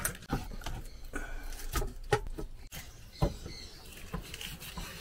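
Kitchen knife cutting raw chicken leg pieces on a wooden cutting board: irregular knocks of the blade on the board, about two a second, with soft scraping between them.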